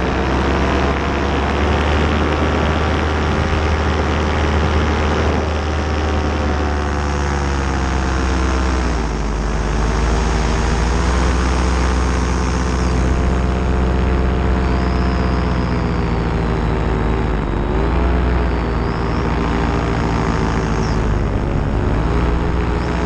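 Paramotor engine and propeller running steadily in flight, with a steady rush of air. The engine note dips briefly and comes back up twice, once near the middle and again later on.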